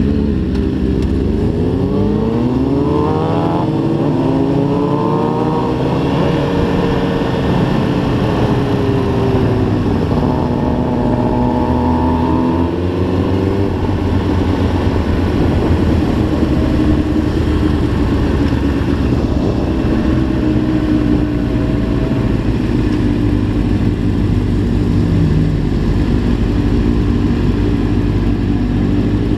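Sport motorcycle engine accelerating hard through the gears, its pitch climbing and dropping back with each shift over the first dozen or so seconds, then settling to a steadier, lower note as the bike cruises and slows.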